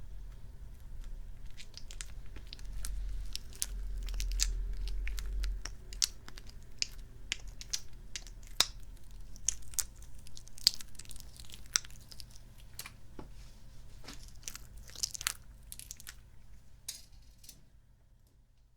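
Sticky, squishy kidney-bean toy being squeezed and pulled close to the microphone: an irregular run of sticky crackles and squelching clicks. A low rumble of handling comes in about three to five seconds in, and the sounds thin out and stop near the end.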